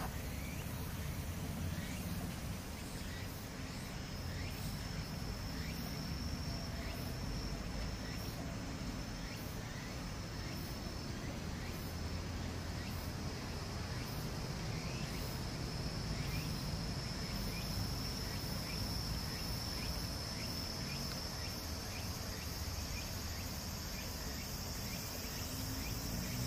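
Insects calling in a steady, high continuous trill that grows a little louder about halfway through, with faint short rising chirps repeating about once a second. A low, even rumble lies underneath.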